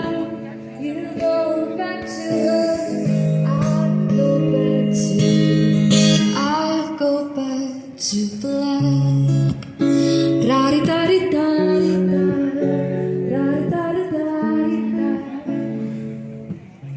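Music played on a guitar, with a voice singing.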